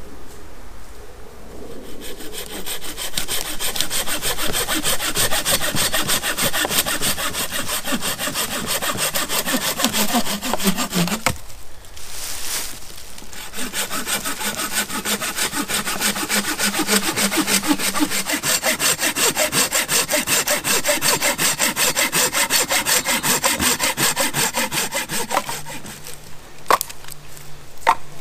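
Hand saw cutting through a dead branch with quick, even back-and-forth strokes. The sawing stops for about two seconds a little before halfway, then starts again and runs on until near the end. A few sharp wooden knocks follow.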